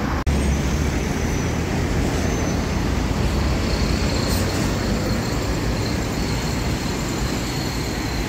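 Steady noise of road traffic: cars and trucks passing on a busy multi-lane road, with a strong low rumble.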